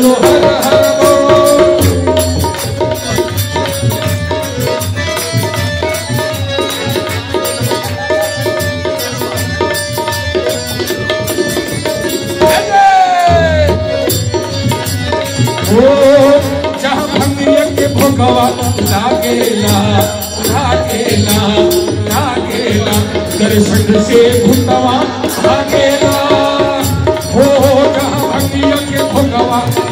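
Loud devotional bhajan music: singing over a steady beat of drums and jingling percussion.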